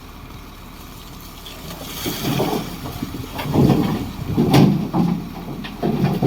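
Komatsu D58 bulldozer's diesel engine running, working up under load about two seconds in with repeated low surges, and a few sharp metallic knocks.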